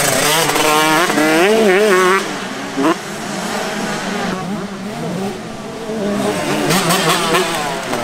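125cc two-stroke motocross bike engine revving hard, its pitch climbing and dropping with the throttle and gear changes. Loud for the first two seconds, lower through the middle, then picking up again near the end.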